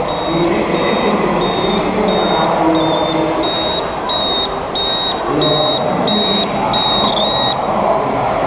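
Scale-model Astra HD7 truck's reversing alarm giving a high beep about twice a second, over the steady noise of the truck running; the beeping stops about a second before the end.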